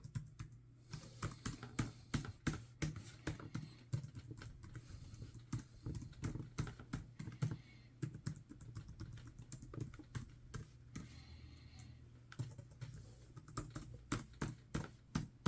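Typing on an HP Stream 13 laptop keyboard: a run of irregular key clicks with a short pause about eleven seconds in. The keys are being tested after the laptop was reassembled and the keyboard ribbon cable reconnected.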